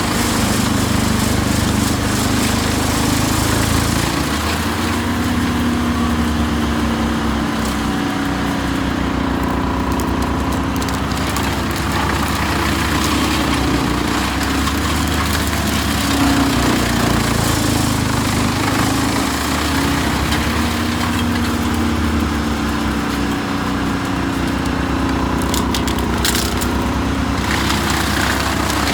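Wood chipper's engine running steadily under load, its pitch wavering slightly, with a few sharp cracks of wood near the end.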